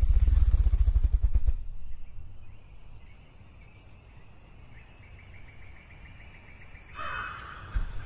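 Male ruffed grouse drumming: its beating wings make deep, rapid thumps that blur into a whir and stop about a second and a half in. After that it is much quieter, with a faint high trill and a short louder sound near the end.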